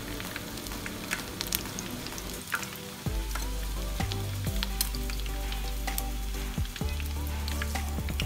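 Chicken wings sizzling as they deep-fry in hot oil in a frying pan, with a steady hiss and scattered crackles and pops.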